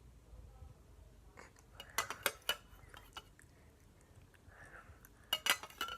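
A spoon clicking and clinking against a container while water is scooped and added spoonful by spoonful, in two quick clusters of taps about two seconds in and again near the end.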